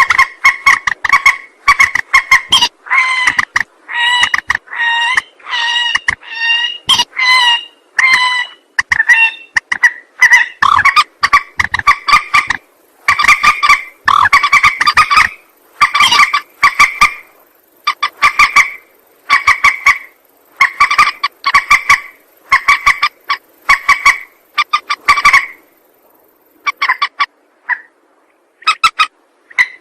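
Recorded lure call of a mandar, a rail, played on a loop. Short harsh calls repeat about once a second, with a brief pause near the end.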